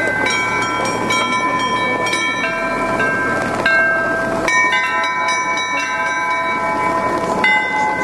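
Several small Orthodox church bells hung on a wooden frame, struck by hand in irregular quick succession, several pitches ringing on and overlapping.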